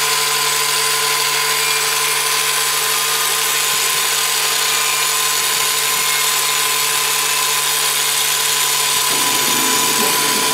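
Angle grinder with a 1/8-inch abrasive cut-off wheel cutting through thick steel plate, running steadily: a loud grinding hiss with a constant motor whine under it.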